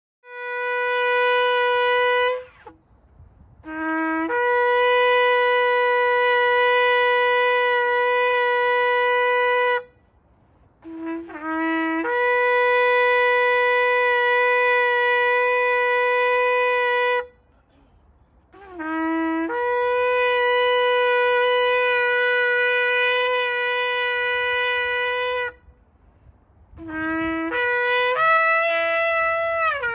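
Shofar blown in a series of five long blasts, each starting with a short low note that leaps up to a held higher note lasting several seconds, with brief pauses between. In the last blast the pitch lifts higher for a couple of seconds and then drops back.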